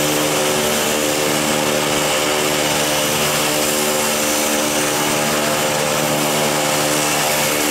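Airbus A321-211's CFM56-5B turbofan engines running at taxi idle as the airliner rolls past: a steady hum with a hiss over it.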